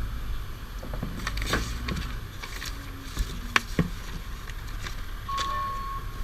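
Scattered clicks and knocks of parts and tools being handled over a steady low rumble. A steady high beeping tone starts near the end.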